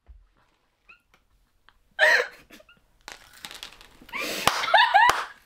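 Two young women laughing: a short squealing laugh about two seconds in, then breathy, gasping giggles, with a couple of sharp smacks near the end.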